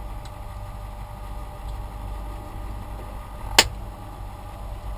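Electric fan running with a steady low hum. A single sharp click about three and a half seconds in.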